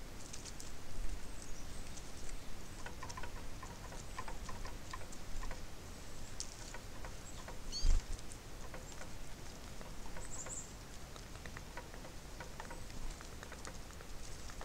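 Small birds feeding at a seed feeder: a steady run of light pecking and scratching clicks on the seed and feeder, with a few brief high chirps and one low thump about eight seconds in.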